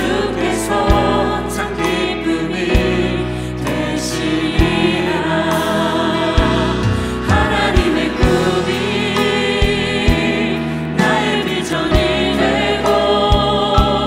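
Women's choir singing a Korean worship song in harmony, with instrumental accompaniment underneath.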